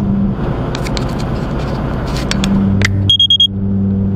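Truck cab at highway speed: steady engine and road drone, with a few sharp clicks. Just after three seconds in come four quick, high electronic beeps.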